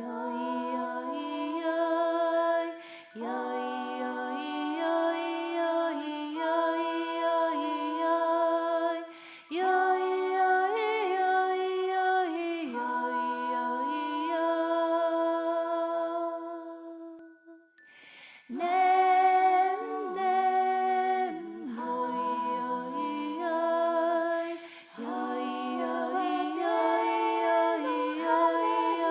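Slow, gentle wordless a cappella melody of long held notes in a lullaby style, with a short pause about two-thirds of the way through.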